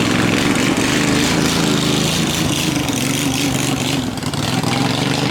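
Racing boat engines running hard and steady, with spray and wind noise.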